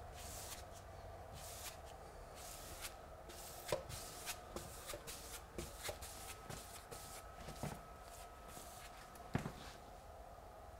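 Pasting brush swishing over a painted wall as wallpaper paste is brushed on: a run of faint, quick strokes with light taps between them, and one sharper tap about nine seconds in.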